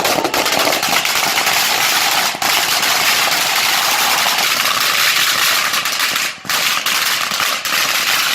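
A long string of firecrackers going off, rapid pops crowding into a continuous crackle, with brief lulls about two and six seconds in.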